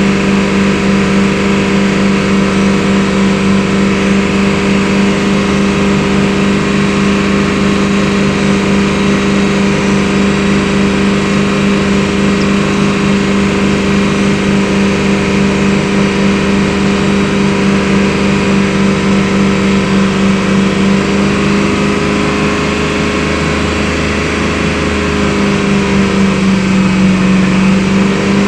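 BMW engine running steadily, with a constant tone over a fine even pulse. It eases a little about two-thirds of the way through and picks up slightly near the end.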